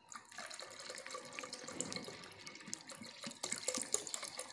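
Water pouring in a stream from a plastic bottle into a metal pot of thick yogurt and gram-flour batter, splashing steadily, with a few light clicks.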